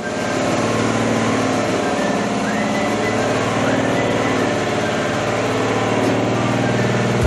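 Outrigger boat's engine running steadily at a low, even pitch.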